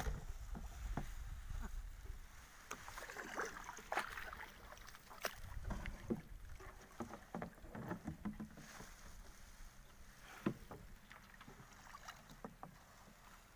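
Small boat on a river: a low rumble that fades away over the first two seconds, then scattered knocks and clatter on the hull and light splashing as the net is handled over the side.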